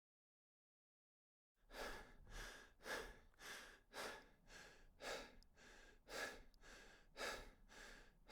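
Fast, rhythmic breathing, about two breaths a second, starting a second and a half in after complete silence.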